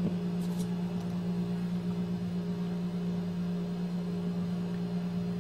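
A steady low background hum, with a fainter higher tone above it, and a brief soft click about half a second in.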